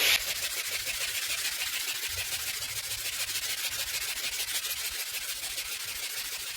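Diablo SandNet mesh abrasive being rubbed back and forth across a surface in quick, repeated sanding strokes: a steady, even scratching.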